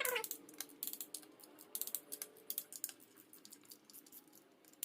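Quick, irregular light metallic clicks from the ratchet of a torque wrench and its socket being worked on oil pan bolts.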